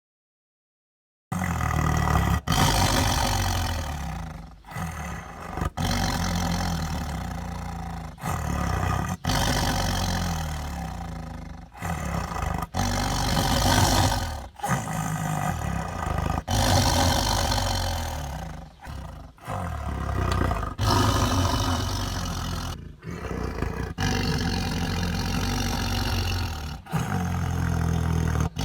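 Tiger growling and roaring: a string of deep, rumbling growls and roars starting about a second in. It comes as many separate takes, each cut off abruptly before the next begins.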